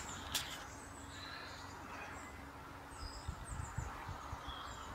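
Small birds chirping and twittering over a steady outdoor hiss. There is a sharp click about a third of a second in, and a run of low thumps in the second half.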